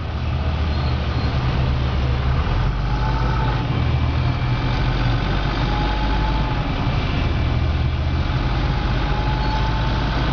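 Armored military truck's diesel engine running steadily as the vehicle drives, heard from the gunner's turret, its low note shifting a couple of times. Faint brief whines come through above it a few times.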